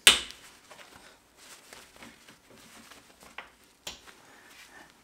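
Sharp click right at the start, then faint small ticks and rustling of a gloved hand turning a hex screw by hand with an Allen key into a desk's metal bracket, with two louder knocks past three seconds in.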